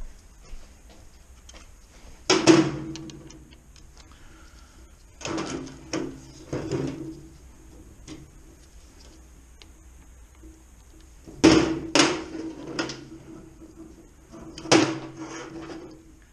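Metal tools and parts knocking and clanking against a stripped gearbox casing in several short bursts, each knock ringing briefly.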